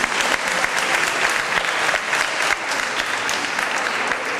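Audience applauding: many people clapping together in a hall, tapering off near the end.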